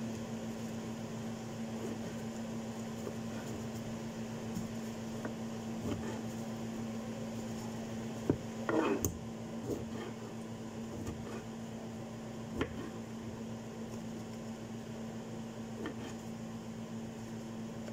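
Steady low hum of a kitchen appliance, with scattered sharp taps of a knife on a cutting board as oranges are cut, and a short clatter about nine seconds in.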